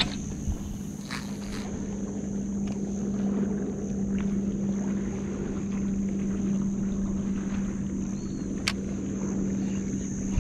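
A spinning rod casting a metal lure: a swish and a brief hiss of line paying out near the start, then occasional ticks of the reel during the retrieve. A steady low drone runs underneath.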